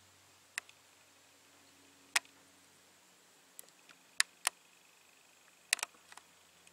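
A series of about ten short, sharp clicks at irregular intervals over a faint steady hum, the loudest about two seconds in and just after four seconds.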